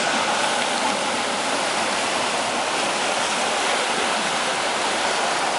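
Surf breaking and washing up a sandy beach, a steady even rush with no distinct breaks.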